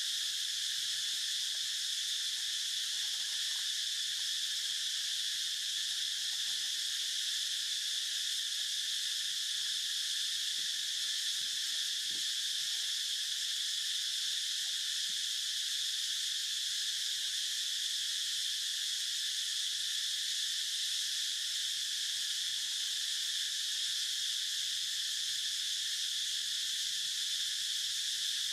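Steady chorus of insects, high-pitched and even throughout, with no breaks.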